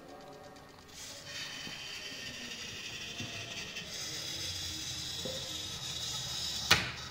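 Servo motors of an Arduino Braccio robot arm whirring as the arm moves, starting about a second in, with one sharp click near the end.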